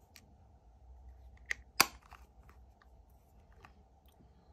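Plastic eyeshadow palette's mirrored lid snapping shut with one sharp click a little under two seconds in, just after a smaller click, among faint ticks of the compact being handled.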